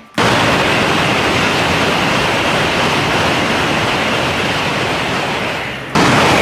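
A train rushing past: a loud, steady rushing noise that starts abruptly and jumps louder suddenly near the end.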